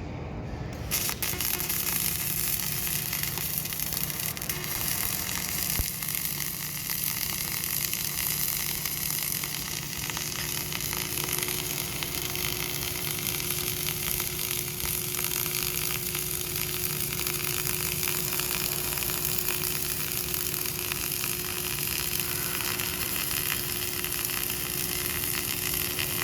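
MIG welding arc crackling and sizzling steadily, striking up suddenly about a second in and running as one continuous bead.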